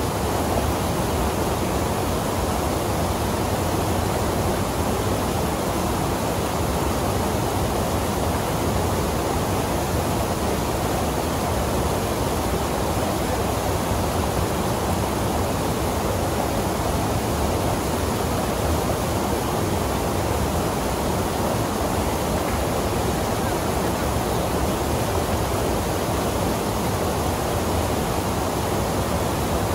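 Waterfall and whitewater rapids rushing steadily over rock into a pool, an even, unbroken wash of water noise.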